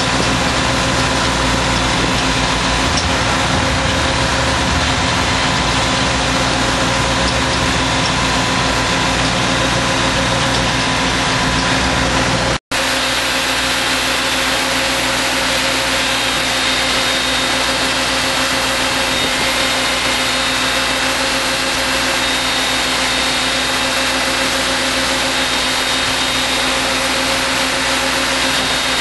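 Tractor-driven T5 soil machine running steadily: a constant engine drone with steady whining tones. About halfway through the sound cuts out for an instant and carries on with less low rumble.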